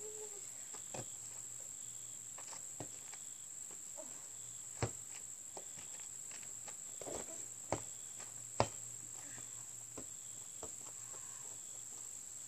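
Steady high-pitched insect chorus, with a few sharp knocks from a ball bouncing and striking the hoop, the loudest about five and eight and a half seconds in.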